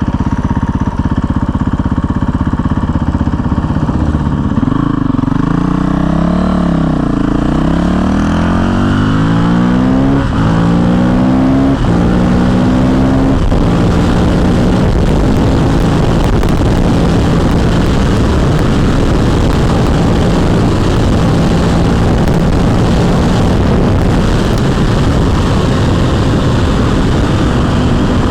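Honda CRF450L's single-cylinder four-stroke engine running low and steady at first. About four seconds in it pulls away, its pitch climbing and dropping several times as the gears go up. It then runs steadily at speed.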